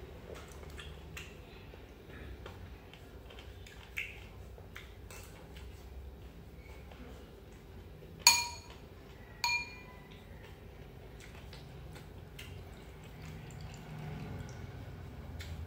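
A metal spoon strikes a ceramic soup bowl twice, a little over a second apart, each clink ringing briefly. Soft clicks of the spoon and bowls come and go around them.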